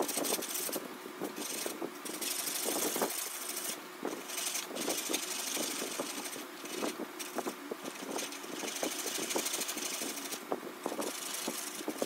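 Chisel cutting a spinning wooden workpiece on a foot-powered spring pole lathe, rounding over the end of the baton. The scraping hiss of the cut comes and goes with the back-and-forth strokes, over many light, irregular clicks and knocks.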